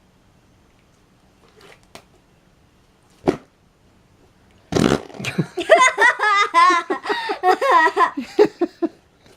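Compound Kings slime squeezed into fart-like noises: a short one about three seconds in and a louder, longer one near five seconds. Then a girl laughs for about four seconds.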